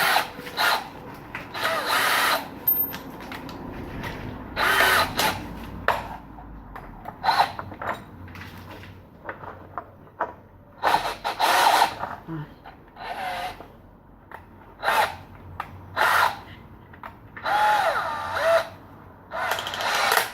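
Tools working on the motorbike's rear suspension bolts in repeated short bursts, each about half a second to a second long, as the shock absorber is taken off.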